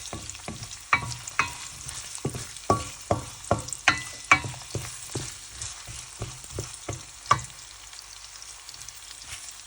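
Chopped onion and ginger sizzling in hot oil in a pan while a spatula knocks and scrapes against the pan in irregular stirring strokes, about two a second. The stirring stops about seven seconds in and the sizzle goes on.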